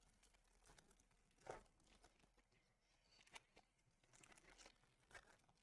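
Near silence, broken by a few faint, brief crinkles of a foil trading-card pack wrapper being handled in the fingers.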